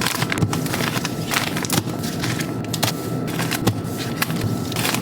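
Food packages and containers being handled and put away in a refrigerator: a string of irregular clicks, taps and rustles over a steady hum.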